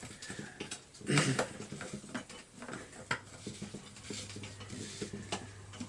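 Small plastic clicks and knocks as the fuel cap of a Husqvarna chainsaw is screwed back on and the saw is handled.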